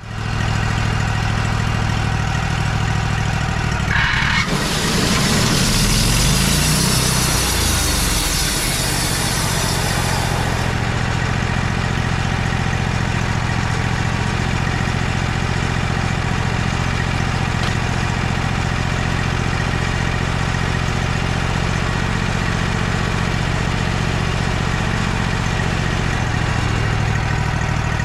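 Wood-Mizer sawmill's gas engine running steadily. About four seconds in, a loud hiss joins it for several seconds while the engine pitch wavers, then it settles back to a steady run.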